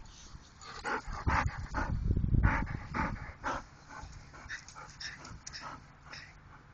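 Dog snuffling and sniffing with its nose pushed into the grass and dirt, rooting for a lizard, in a string of short bursts about two a second. A louder low scuffle comes about one to three seconds in.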